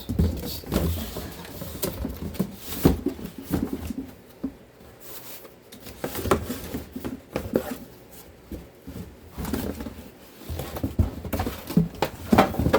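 A cardboard box and its packing being handled: irregular knocks, scrapes and rustles scattered throughout.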